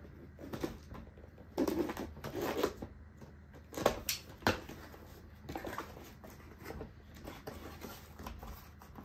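A cardboard box being cut open by hand, with a blade scraping through the packing tape in short, zipper-like strokes. Two sharp clicks come about four seconds in, followed by softer cardboard scrapes and rustles as the box is worked open.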